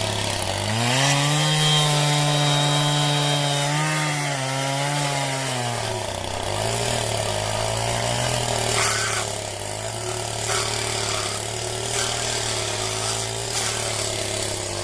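Two-stroke chainsaw revving up about a second in and cutting wood under load for roughly five seconds, then dropping back to a lower steady speed. A few sharp knocks sound near the end.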